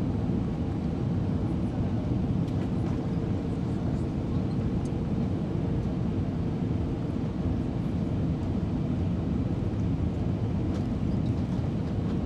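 Steady cabin roar of an Airbus A320-232 on approach, heard from a window seat: airflow and IAE V2500 engine noise, with a faint steady hum.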